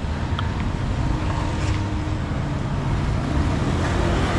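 Road traffic: a steady low rumble of vehicle engines.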